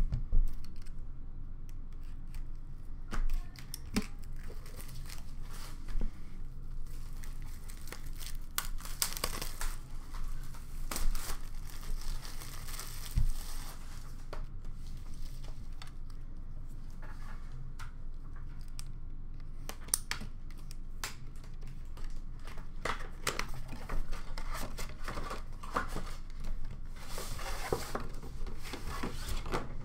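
Packaging of a hockey card box being opened by hand: wrapping crinkling and tearing, and cardboard rubbing and knocking as the outer box is cut and lifted off, in scattered bursts over a steady low hum.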